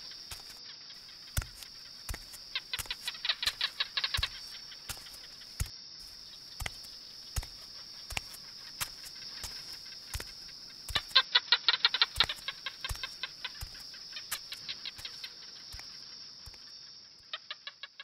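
Creature sound effects for an animated dinosaur: two bursts of rapid, bird-like clucking calls, one about 3 s in and a louder one about 11 s in. Under them run regular heavy footstep thuds, a little over one a second, and a steady high-pitched whine that fades out near the end.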